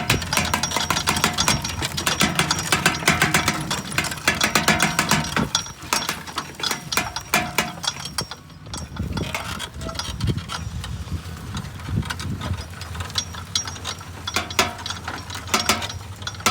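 Metal clattering and rapid clicking of a bull-drawn wheat seed drill's working parts, dense and loud at first and thinning out after about five seconds, over a low steady drone.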